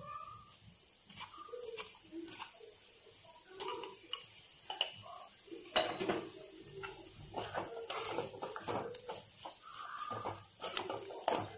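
A steel spoon clinking and scraping against a metal kadai as a dry mix of mint leaves and grated coconut is stirred; the knocks come thicker in the second half. Short animal calls sound faintly in the background.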